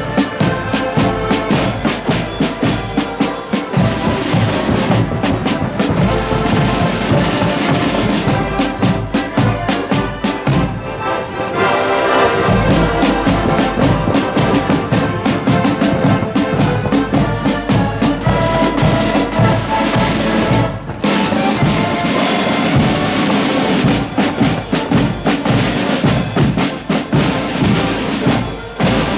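Accordion band playing a march on the move: accordions carrying the tune over side drums and a bass drum beating time.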